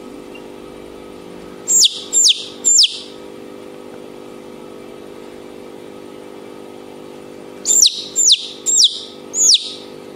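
A young domestic chicken chick, two to three weeks old, peeping loudly while being handled: three peeps about two seconds in, then four more near the end, each falling steeply in pitch.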